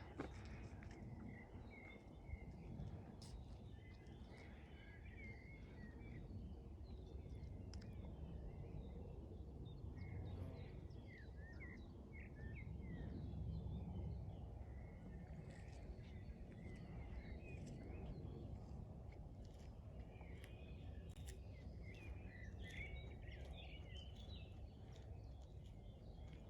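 Small birds chirping on and off, in scattered short calls, over a low steady rumble.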